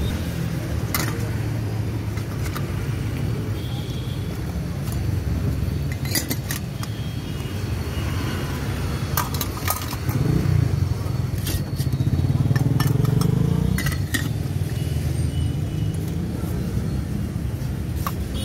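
Small metal toy cups and bowls clinking now and then as hands sort through a basket of them, over a steady low background rumble that swells between about ten and fourteen seconds in.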